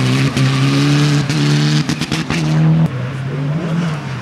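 Mitsubishi Lancer Evolution X rally car driving past at full throttle: the engine revs up in steps through quick gear changes, with sharp cracks between shifts. After about three seconds it gives way to a quieter, more distant engine of the next car approaching.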